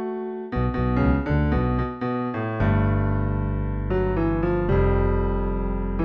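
Piano-like keyboard music: a held note, then a run of short notes, then sustained chords over a deep bass from about halfway.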